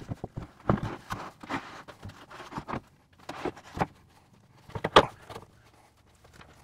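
Large wooden French cleat wall panel knocking and scraping against a wooden workbench and the wall as it is hoisted up and set in place. It makes a series of irregular thumps, the loudest about five seconds in.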